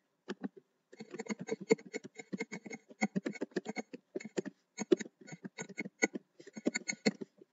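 Typing on a computer keyboard: a few single keystrokes, then fast irregular runs of key clicks from about a second in, with short pauses between bursts.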